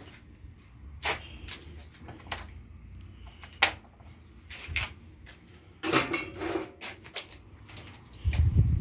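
Hand tools and metal parts of a radial arm saw being handled during reassembly: scattered clicks and knocks, with a ringing metallic clatter about six seconds in and a dull low thump near the end.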